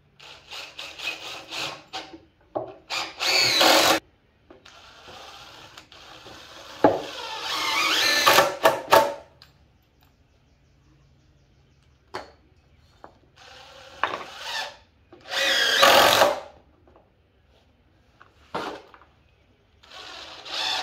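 Cordless power driver sinking screws into 2x6 and 4x4 framing lumber, in a string of bursts lasting from a moment to a few seconds, with short pauses between.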